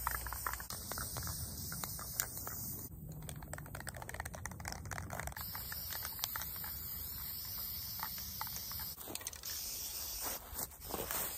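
Aerosol spray-paint can hissing as paint is sprayed onto a round hay bale, with small crackles and rustles of dry straw.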